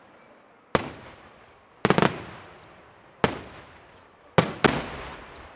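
Aerial firework shells bursting overhead in sharp bangs at irregular intervals, each trailing off as it echoes away. There is a quick cluster of three bangs about two seconds in and a close pair near the end.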